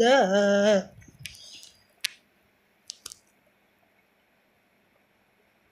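Melodic Quran recitation by a young man's voice, a drawn-out phrase ending under a second in. Then a pause with a few faint short clicks and a low room hiss.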